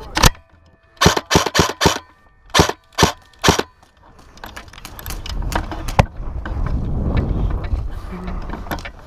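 Airsoft gun firing quick single shots in small groups, about a dozen sharp cracks in the first four seconds. A low rushing noise follows, with one more shot about six seconds in.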